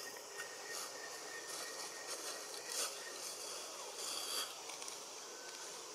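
Forest ambience: a steady insect drone with a few short rustling noises, about four of them, spread through it.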